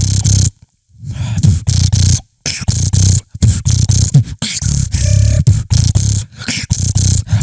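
Beatboxer's inward 'teeth lip roll', a buzzing lip roll made by smiling, opening the upper side of the mouth and breathing in. It comes as a string of short buzzing bursts with brief breaks between them.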